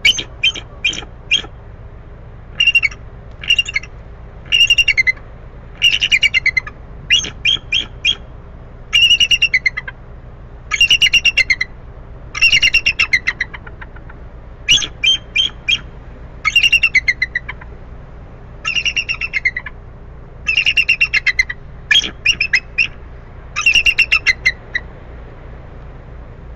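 An eagle calling: series of rapid, high, chattering notes that fall in pitch, repeated every second or two and stopping shortly before the end. A steady low background rumble runs underneath.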